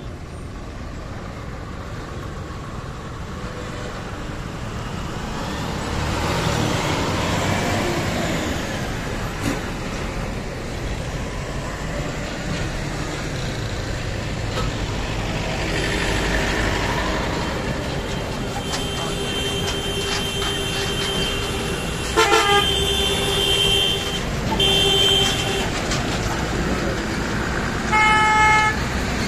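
Slow, heavy road traffic: truck and car engines running and tyres on the road, with vehicles passing close. Vehicle horns sound steadily about two-thirds of the way in, with a short break, and a short loud horn blast comes near the end.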